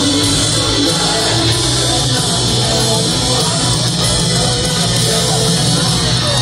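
Loud live rock music from a stage PA: a lead electric guitar playing over grand piano and the band.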